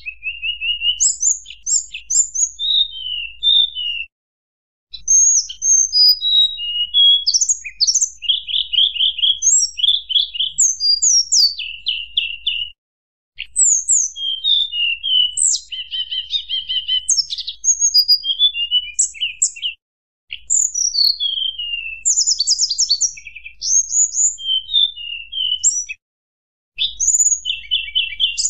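Tledekan gunung, a blue flycatcher, singing a fast, varied string of high whistled notes and trills. This is the flute-like 'nyuling' song used as a lure and master recording. The phrases come in runs broken by a few short silences.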